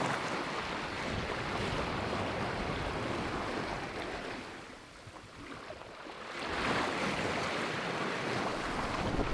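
Sea water rushing and splashing along a sailing yacht's hull under way, with wind. It eases off about five seconds in and surges back up a second or so later.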